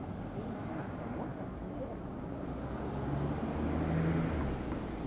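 Street ambience with a motor vehicle passing; its hum and hiss swell to their loudest about four seconds in, then ease off.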